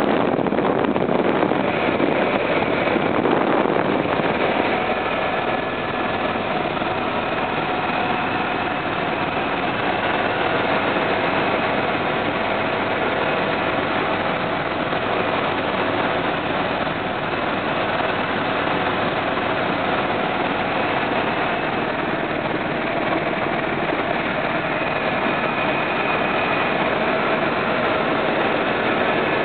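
Helicopter running steadily: an even, loud engine and rotor noise with faint steady whining tones over it.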